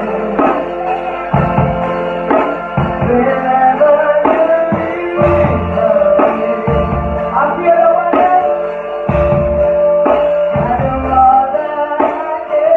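A live lovers rock band playing: an electric bass guitar line moving under a steady beat, with a voice singing the melody over it.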